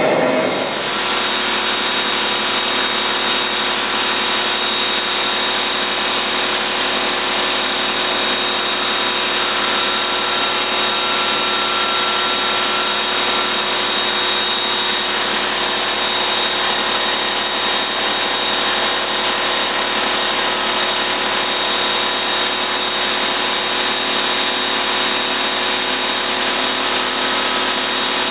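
A workshop machine running steadily: a constant hiss with a few fixed whining tones, at an even level throughout.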